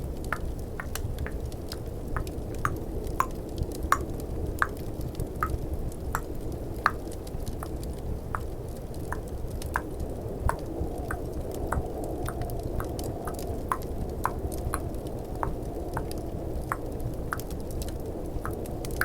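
Close-miked ASMR tongue clicking: wet, sharp clicks about twice a second, varying a little in pitch, over a steady low bed of fireplace and snowstorm ambience.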